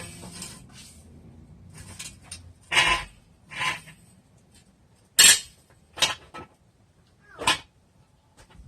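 A series of separate metallic clinks and scrapes, the loudest about five seconds in: tools and brake parts being handled and set down during a front rotor replacement.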